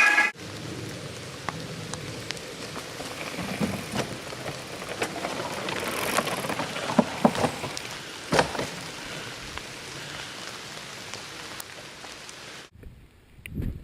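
Helmet-camera sound of a mountain bike ride in the rain: a steady wet hiss of rain and tyres on the trail, with scattered knocks and rattles from the bike over rough ground. It drops off suddenly near the end.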